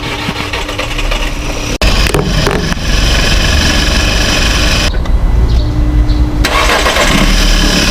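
Volkswagen Vento engine being started and then running steadily, with a brief drop-out about two seconds in. It starts after a crank-no-start fault that reopening the air cleaner seemed to clear.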